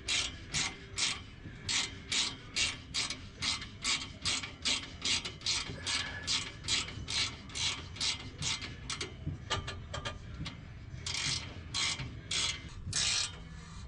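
Ratcheting wrench clicking in quick, even strokes, about two or three a second, as a bolt is run down tight. There is a short pause about two-thirds of the way through, then the clicking resumes.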